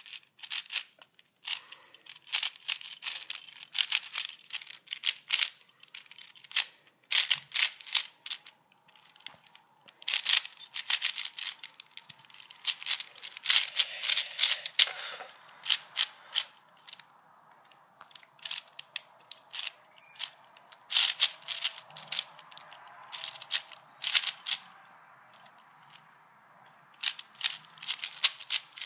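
A 4x4 Rubik's cube being turned fast in a speed-solve: its plastic layers click and clack in rapid bursts, with short pauses between bursts.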